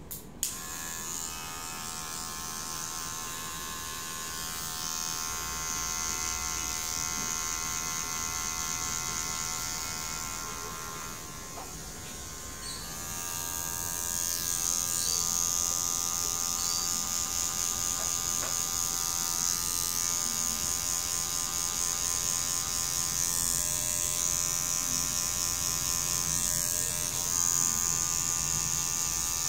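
Electric hair clipper switched on with a click, then buzzing steadily as it cuts hair. About halfway through the buzz changes tone and gets louder.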